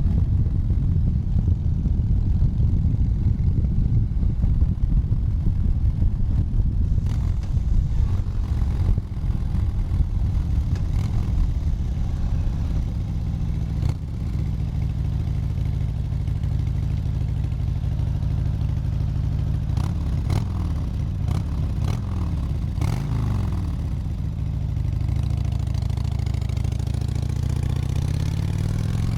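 Harley-Davidson motorcycle's V-twin engine running during a ride. It is rough and uneven for the first half, then settles into a steadier, even note from about halfway. Near the end the revs dip and then rise again.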